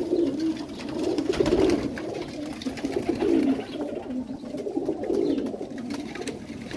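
Several domestic pigeons cooing, their low coos overlapping and repeating, with a few sharp clicks among them.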